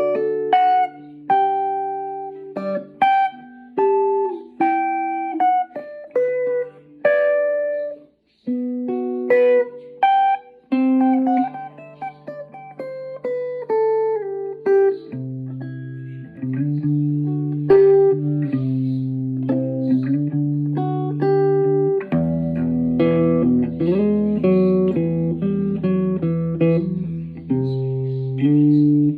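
Guitar being played: a run of single plucked notes that ring and fade, with lower notes sounding underneath from about halfway through and a deeper bass layer joining near the last quarter.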